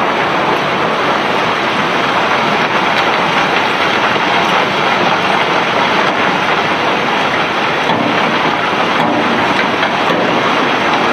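Steady, dense rushing noise of loose cobblestones being unloaded from a barge, with no separate knocks standing out.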